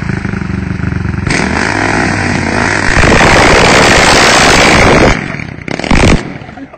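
Modified 660 Kawasaki quad bike engine revving hard, building to a very loud full-throttle run as the quad spins its wheels and slides on wet pavement. The engine then drops off, gives one short loud blip about six seconds in, and fades as the quad pulls away.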